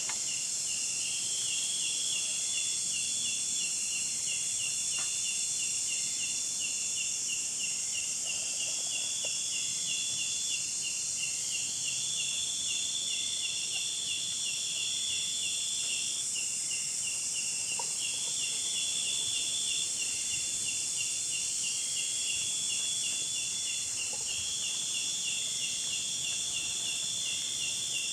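Insect chorus: a steady high buzz of many insects, with one nearer insect repeating rapid chirps broken every couple of seconds by a short steady trill.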